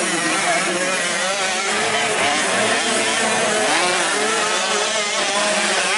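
Several motocross dirt bike engines revving up and down over one another as the bikes race around the track, with a steady low hum underneath.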